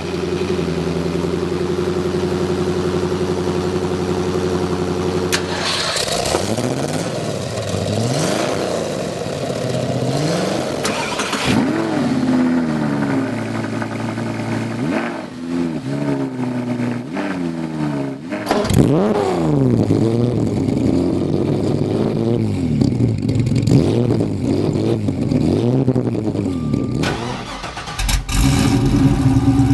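An engine idling steadily, then revved up and down over and over for about twenty seconds, its pitch rising and falling with each blip. It settles back to a steady idle near the end.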